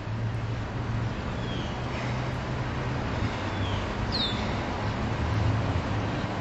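Steady rumble of road traffic, with a few short falling bird chirps, the clearest about four seconds in.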